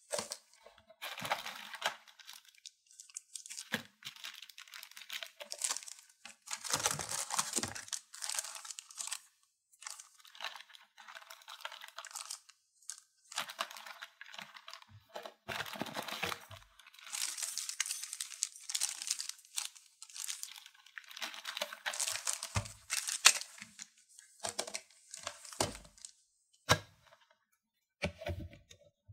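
Plastic packaging crinkling and tearing as a miniature toy kitchen set is unboxed: repeated bursts of rustling broken by sharp clicks and taps of small plastic pieces.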